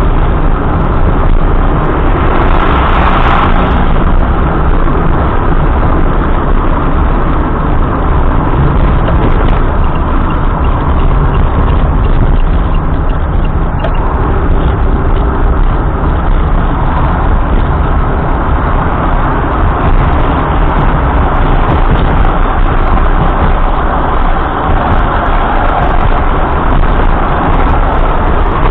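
A car driving, with a steady, loud rumble of road and engine noise and a brief brighter swell about three seconds in.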